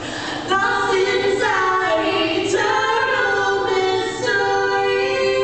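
Women singing a cappella in a tiled bathroom, with long held notes; the singing starts about half a second in.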